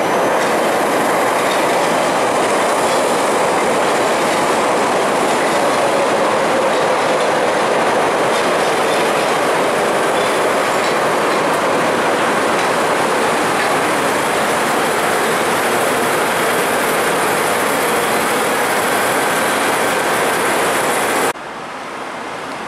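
CTA 3200-series 'L' rail cars rolling along the elevated track past the platform: a loud, steady rush of wheel and rail noise. It cuts off suddenly near the end, leaving a fainter background.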